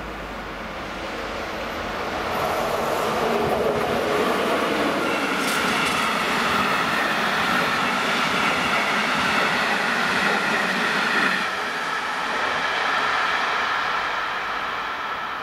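A train passing over a level crossing. The rumble of the wheels on the rails swells in over the first couple of seconds, stays loud through the middle and eases a little near the end, with a steady high-pitched ringing from the wheels.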